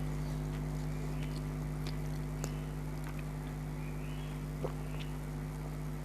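Close-miked chewing and mouth sounds of someone eating fried chicken snacks: scattered soft clicks and crunches over a steady electrical hum.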